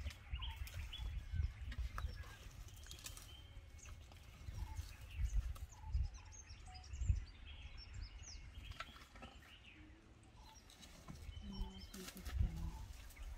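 Quiet outdoor ambience: small birds chirping in short, scattered calls over a low, uneven rumble of background noise.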